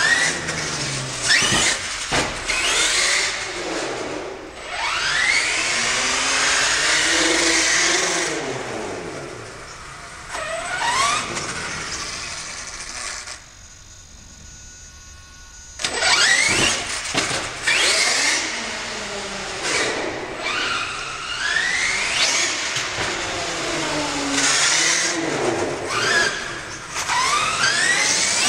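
HPI Savage SS radio-controlled monster truck's nitro engine revving up and down over and over in rising and falling whines as it is driven. About halfway through it drops to a quieter steady idle for a couple of seconds, then revs again.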